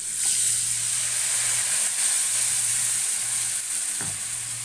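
Half a glass of water poured into a pan of hot sesame oil and fried spice paste sets off a loud sizzle. The sizzle starts suddenly and slowly eases off as the mixture bubbles under a wooden spatula, with a single knock about four seconds in.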